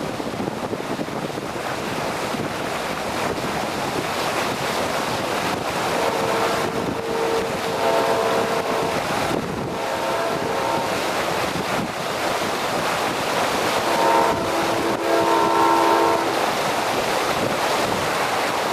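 Train horn on the Colón–Panama City railway sounding twice, each a chord of several notes held for a few seconds, over steady wind rushing on the microphone.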